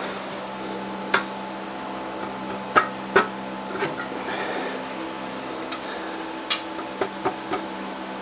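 A handful of sharp knocks and clanks, about eight spread irregularly, over a steady machine hum.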